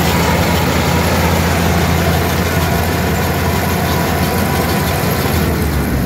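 Kubota combine harvester running steadily while cutting a paddy crop: a low engine drone under a dense, even mechanical rush from the cutting and threshing works.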